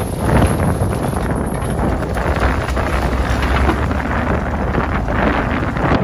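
Strong wind buffeting the microphone over the low rumble of a small trawler's engine.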